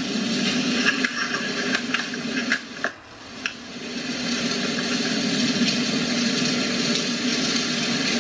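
Steady rushing noise from a video's soundtrack played through a computer speaker, with a few sharp clicks in the first few seconds.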